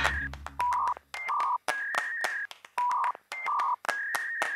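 Music fading out, then a repeating rhythmic pattern of short electronic beeps at two pitches, a lower and a higher one, with sharp clicks between them.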